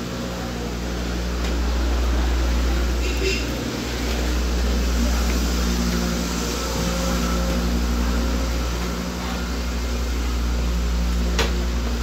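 Inside a tram car, a steady low rumble with a layered hum. A single sharp click comes near the end.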